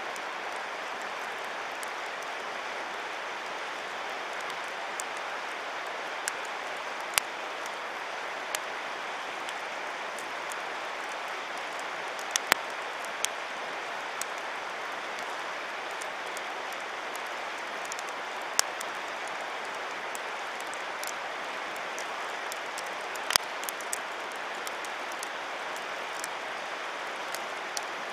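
Wood campfire crackling, with sharp single pops every few seconds over a steady rushing hiss.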